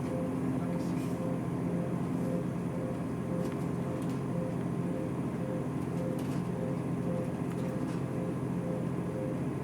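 Steady mechanical drone of a running vehicle, likely a train, with a low hum and a tone that pulses regularly a few times a second.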